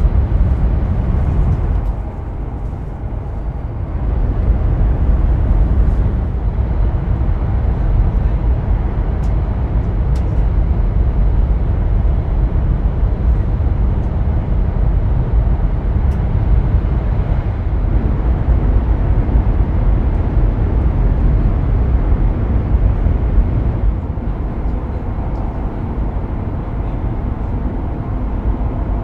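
Steady low rumble of an E5 series Shinkansen running on the line, heard inside the passenger cabin.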